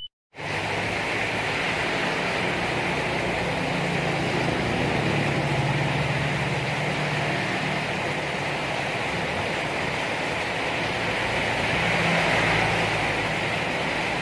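Heavy tropical downpour in a windstorm: a steady, loud hiss of rain that begins abruptly a moment in.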